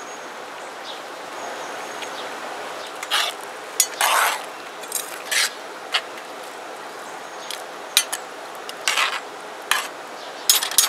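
A metal spoon stirring a pot of crawfish and corn jambalaya, scraping and clinking against the pot in irregular strokes from about three seconds in. A steady hiss from the simmering pot on its burner runs underneath.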